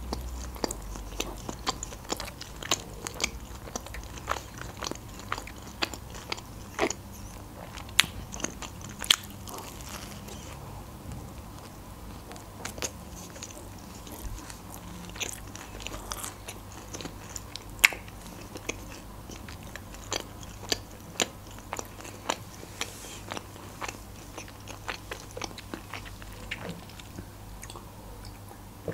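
A person chewing food close to the microphone, with irregular sharp, wet mouth clicks and crunches.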